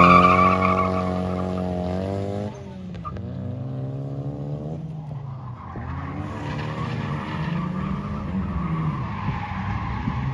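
Toyota Cressida's swapped 3S-GTE turbocharged four-cylinder engine held at high revs as the car sets off on a drift run, its note dropping sharply about two and a half seconds in. Then it changes revs further off, and from about six seconds tyres squeal as the car drifts across the track.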